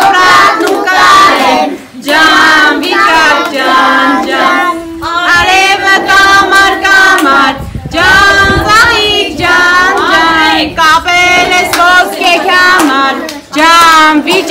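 A group of young children and women singing a song together in phrases with short breaks, with hand clapping along, during the Ascension (Hambardzum) lot-drawing.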